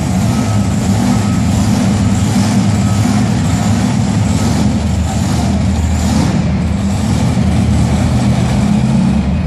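Monster truck engines, supercharged big-block V8s, running loudly at close to a steady note.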